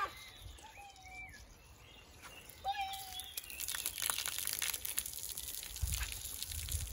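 A hand water pump squeaking twice as its handle is worked, then water splashing and pattering onto the wet paving stones.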